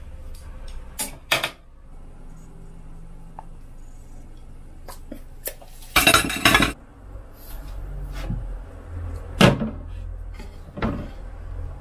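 Kitchen clatter of dishes and utensils: a few separate clinks and knocks, with a louder, longer clatter about halfway through, over a low steady hum.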